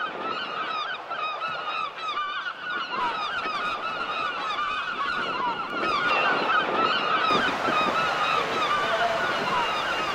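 A flock of birds calling continuously, many short, repeated calls overlapping one another, over a steady background hiss.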